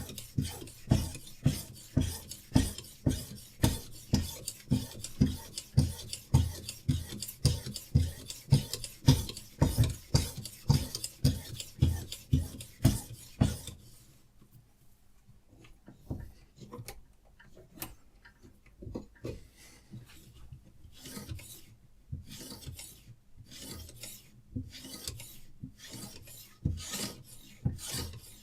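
Diamond sharpening stone on a Hapstone RS guided sharpener rasping back and forth along a knife edge in steady strokes, about two a second. About halfway through the strokes stop for a few seconds, then resume lighter.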